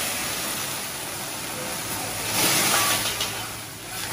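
Flambé on a hot teppanyaki griddle: alcohol flaring up and sizzling in a steady hiss, which swells louder for about a second around two and a half seconds in.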